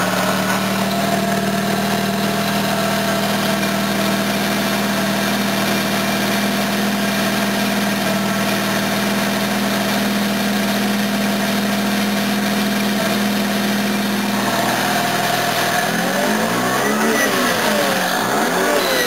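NSU Ro80's twin-rotor Wankel engine idling steadily, warm, just after starting. About sixteen seconds in, a strange noise joins it, a warble that rises and falls in pitch over and over; it appears only once the engine is warm, and its cause is unknown to the owner.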